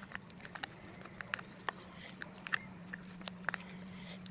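Homemade slime being worked by hand, making irregular wet clicks and small pops a few times a second over a steady low hum.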